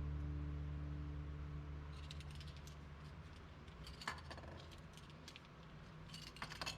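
Light metallic clinks and rattles of hand tools, such as sockets and wrenches, being handled and set into a toolbox. The clinks are scattered, with a sharper one about four seconds in and a quick cluster near the end.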